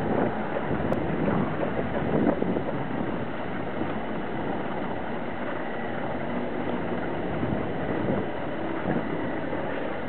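Wind buffeting the microphone: a steady rushing noise with a few brief gusts, stronger in the first few seconds.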